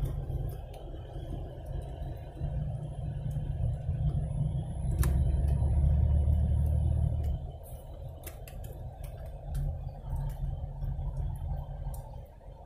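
Inside the cabin of a 1992 Oldsmobile Toronado Trofeo driving slowly, a low rumble of its 3.8-litre V6 and the tyres. The rumble swells for a few seconds around the middle and then eases off, with scattered light clicks and rattles.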